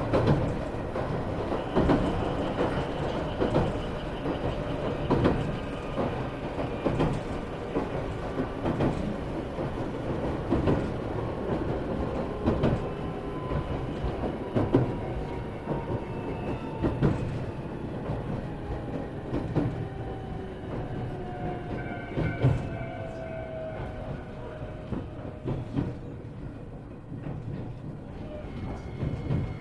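Running noise inside an Iyotetsu 3000 series electric train car: a steady rumble with wheels clacking over rail joints at regular intervals. Over the second half a motor whine falls steadily in pitch as the train slows for the next station.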